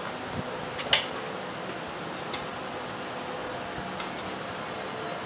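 Steady mechanical hum with a few sharp clicks, the loudest about a second in.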